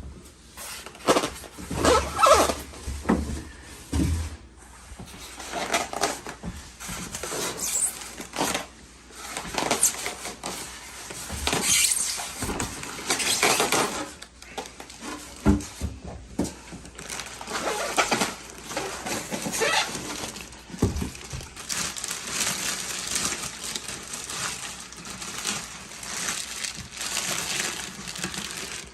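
Packaging rustling and parts knocking as a key-cutting machine is unpacked by hand: irregular scraping and crinkling with a few sharp knocks.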